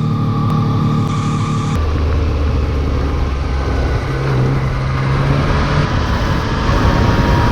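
Yamaha XSR900's inline three-cylinder engine running at steady speeds, its pitch dropping and rising in steps a few times.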